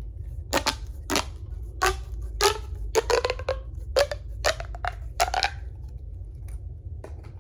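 Plastic pop tube fidget toy being stretched and squeezed, its corrugated ridges snapping with about a dozen sharp pops, some with a brief ring. The pops stop about five and a half seconds in.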